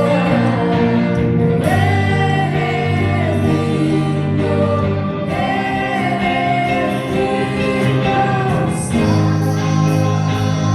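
Christian gospel song with a choir singing sustained notes over instrumental backing.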